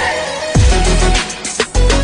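Electronic background music with a steady beat and deep bass notes that slide downward.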